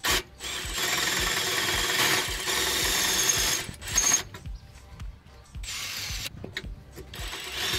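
Cordless drill spinning a twist bit through a metal underbody panel, in long runs with a short pause between. A steady high whine sits on top of the cutting noise.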